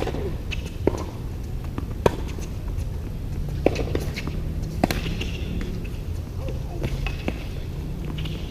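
Tennis ball struck by racquets and bouncing on a hardcourt during a rally: six or so sharp pops spread over several seconds, the loudest at the very start with the serve. A steady low rumble sits under them.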